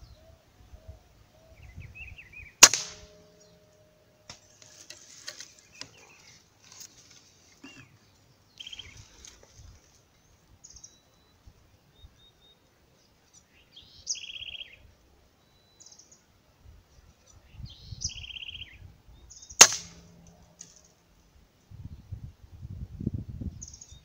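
Two sharp shots from a scoped hunting gun, about 17 seconds apart, each with a brief ringing tail. Small birds chirp and twitter between the shots, and low rustling comes near the end.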